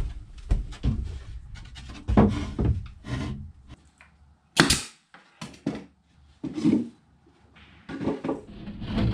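Plywood drawer being assembled: a string of irregular sharp knocks and thunks, the loudest a little under five seconds in.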